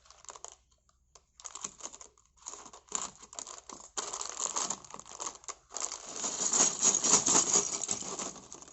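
Sealed plastic Lego parts bag crinkling and rustling as it is handled and pulled open, with clicky plastic rattles. It comes in scattered bursts at first, then grows denser and louder about halfway through.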